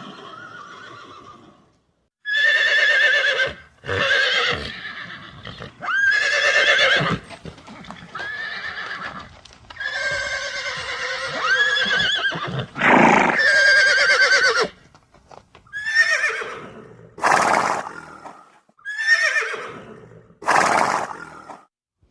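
Horses neighing over and over: about ten shrill whinnies with a quavering pitch, each a second or two long, separated by short pauses.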